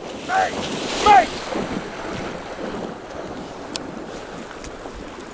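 Wind buffeting the microphone and water splashing as a retriever leaps into the river and swims out to fetch a shot duck. Two short calls about a second apart near the start stand out above the noise.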